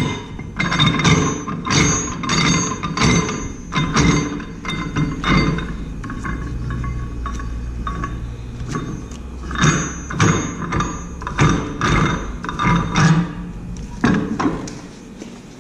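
Wheel balancer's wing-nut hub clamp being spun onto the threaded shaft and tightened against the centering cone: a run of metallic clicks and knocks, roughly one or two a second, easing off in the middle over a steady low hum before more knocks follow.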